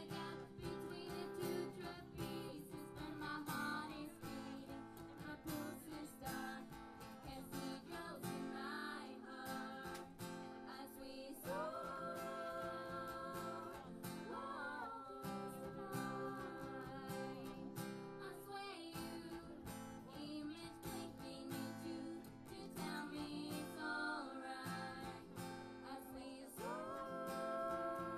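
Acoustic guitar strummed with a voice singing over it, holding long notes.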